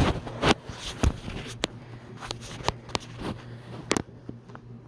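A dog scuffling about, with a dozen or so scattered sharp clicks and knocks.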